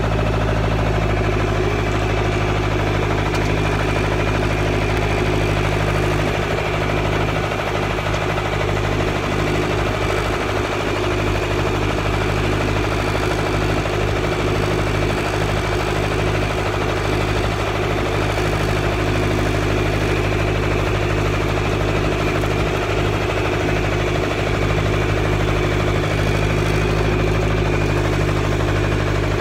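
A 1969 McCormick B-275 tractor engine runs at a steady speed while it pulls a plow through the ground. The engine note stays even throughout.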